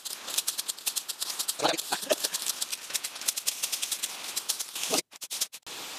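A hand sickle slashing and scraping through grass and weeds close to the ground: a rapid run of sharp swishing ticks, several a second, breaking off abruptly about five seconds in.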